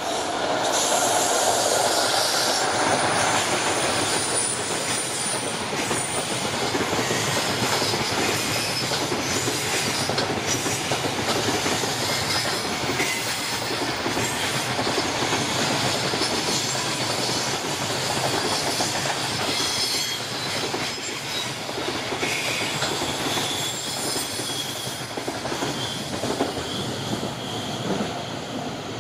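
A JR Freight EF66 electric locomotive and its long train of container wagons passing close by on a curve. The wheels make a steady rolling din with high-pitched wheel squeal on the curve. The sound is loudest as the locomotive goes by in the first few seconds and fades slowly near the end as the train draws away.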